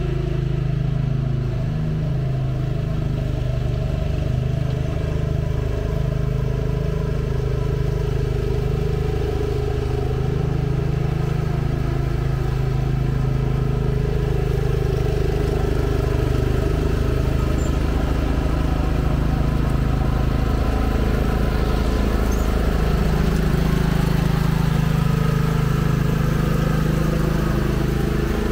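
Cub Cadet CC30H riding lawn mower engine running steadily while mowing, a little louder in the second half as the mower comes nearer.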